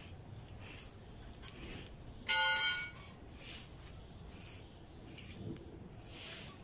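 Broom sweeping the ground in strokes about once a second, each a short soft hiss. A little over two seconds in, a single ringing clang, the loudest sound, dies away within about half a second.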